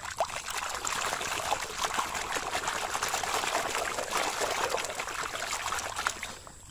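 Water splashing and sloshing as a plastic toy turtle is swished and rubbed by hand in shallow water to wash off caked mud, a busy run of small splashes that stops shortly before the end.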